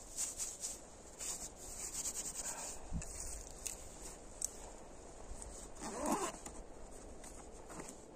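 Dry tinder of grass and bark crackling and rustling as it is rubbed and bunched in the hands, mostly in the first couple of seconds. A brief pitched sound about six seconds in is the loudest moment.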